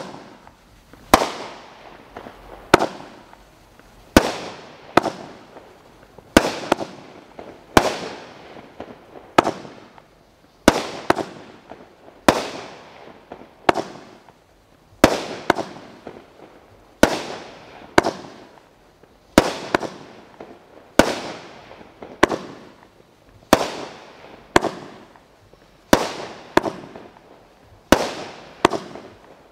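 World Class Fireworks 'Just Hanging' multi-shot firework cake firing a steady series of shots, a little over one each second. Each is a sharp bang that trails off.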